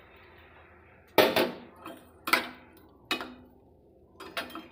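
Metal kitchenware clanking: four or five sharp knocks with a short ring, about a second apart, over the faint fading sizzle of water just poured into hot oil in a kadai.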